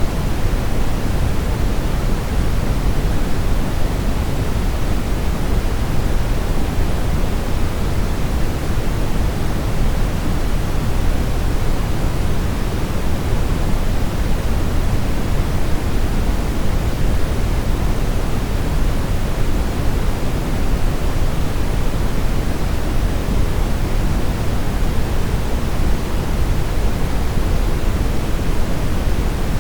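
Steady brown noise: an even, unbroken rushing hiss weighted heavily toward the low end.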